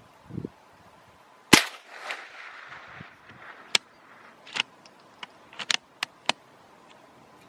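.22 LR rifle fired once about a second and a half in, a sharp crack with a short echo. It is followed by several quieter, sharp clicks spread over the next few seconds.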